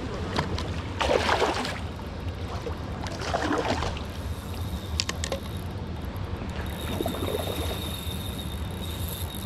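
Water splashing in two short bursts, then a few light sharp clicks about five seconds in.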